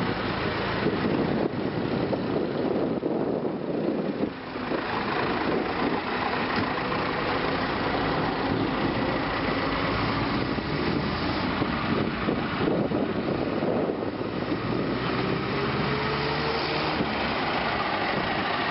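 Vintage car engine running steadily, with a faint tone that rises in pitch for a few seconds about three-quarters of the way through.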